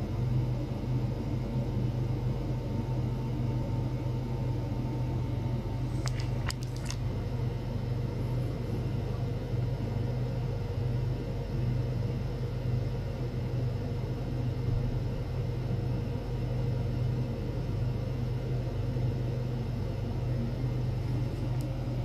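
Steady low hum from an ultrasonic probe setup driven by function generators with the probes in water, with faint steady higher tones and a few faint clicks about six seconds in.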